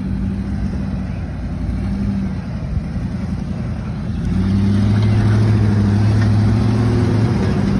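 Off-road vehicle's engine running, growing louder and holding a steady higher drone from about four seconds in, as if given more throttle.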